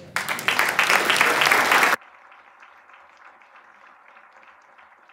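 Audience applauding, loud at first, then dropping suddenly to a much softer clapping about two seconds in that carries on.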